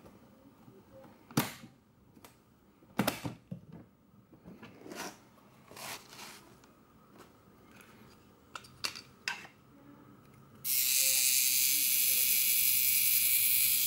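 Metal case latches snapping open and the lid and contents being handled, a run of sharp clicks and knocks. About ten seconds in, a clockwork self-timer for a film camera runs down with a loud, steady high whirr for about three seconds, then stops abruptly.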